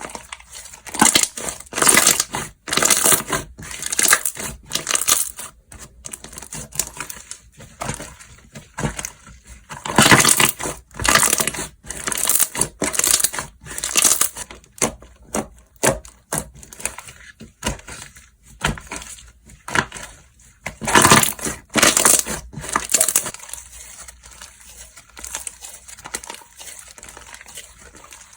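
Slime being squeezed, stretched and pressed by hand, making crackling, crinkly squelches in repeated bursts. There are three busier spells, near the start, in the middle and about three quarters through, then softer handling near the end.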